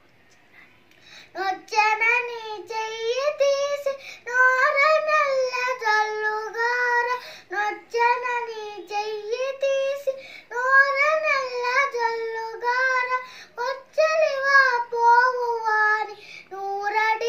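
A young girl singing a Telugu devotional song solo, with no accompaniment, in long, ornamented, bending notes. She starts again after a short pause of about a second at the start.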